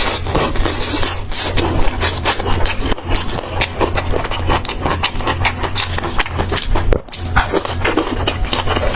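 Close-miked crunching and chewing of fried skewered snacks: a dense run of rapid, crisp crackles over a steady low hum, with a brief pause about seven seconds in.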